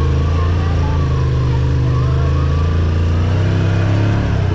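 Side-by-side UTV engine running steadily, its pitch shifting slightly near the end.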